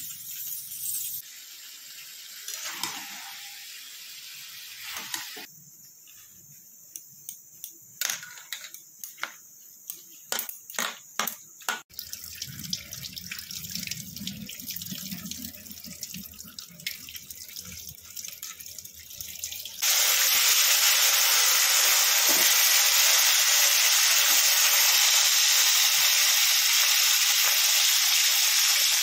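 Sharp clicks and knocks, then tap water running over fruit being rinsed in a plastic basket. About two-thirds of the way in, a loud, steady sizzle starts suddenly: fish pieces frying in oil in a steel wok.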